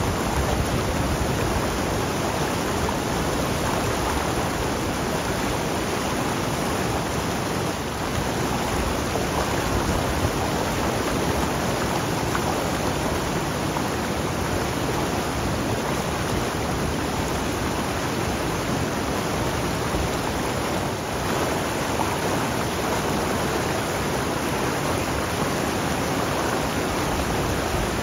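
Steady rush of a river flowing over rocks, an even, unbroken wash of water noise.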